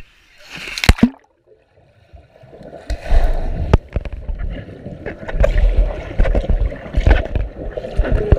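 Swimming-pool water heard from under the surface: a muffled churning and gurgling rumble with scattered knocks. It briefly goes quiet about a second in, then builds up from about two and a half seconds in.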